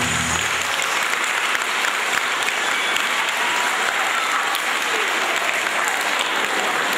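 Audience applauding steadily, as the last notes of music fade out in the first second.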